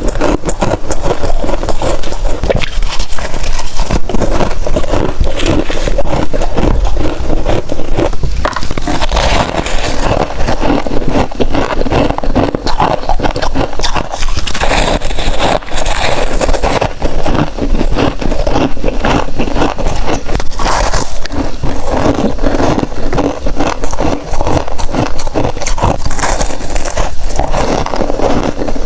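Close-miked biting and chewing of freezer frost: dense, continuous crunching and crackling of ice.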